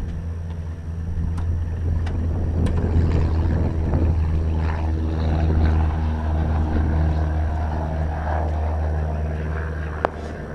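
Steady low engine or motor drone whose pitch shifts a little every second or two, with one sharp click about ten seconds in.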